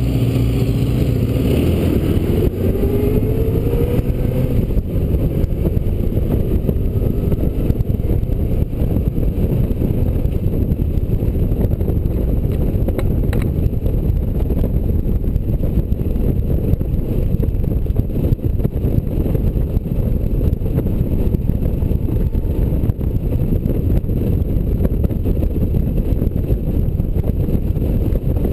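Honda Gold Wing touring motorcycle riding along an open road: steady engine, road and wind noise, with the engine's pitch rising over the first few seconds as it accelerates.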